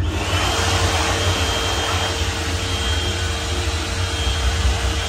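Automatic hand dryer blowing, set off by a hand under its sensor: a steady rush of air with a faint whine, cutting off near the end.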